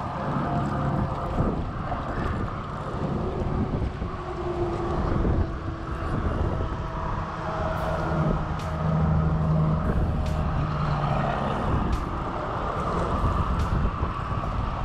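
Steady rush of road traffic, with a passing vehicle's engine hum standing out for a few seconds past the middle.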